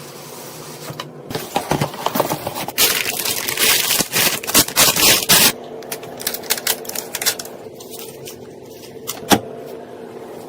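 Computer parts being handled and fitted during a PC build: a string of irregular clicks and taps over a low hum, with a dense scraping stretch around the middle and one sharp click near the end.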